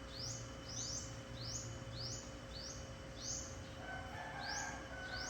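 A bird outside repeats a short, high, rising chirp about twice a second over a faint steady hum.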